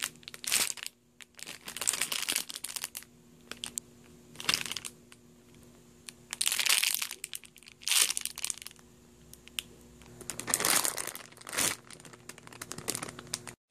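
Clear plastic bags crinkling in irregular bursts as packaged squishy toys are handled and turned over, over a faint steady hum.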